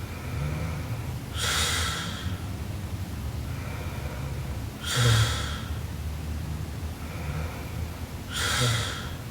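A young woman snoring in her sleep: three stronger snoring breaths about three and a half seconds apart, each starting with a low snort, with softer breaths in between.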